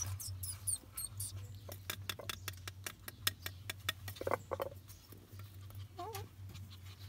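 Very young puppies squeaking in thin, high cries in the first second, then a fast run of light clicks and taps, and a short whimper about six seconds in, over a low steady hum.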